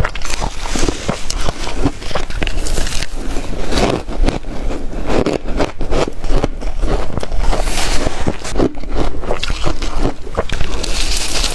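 A person biting and chewing ice: a dense, irregular run of crunching and crackling.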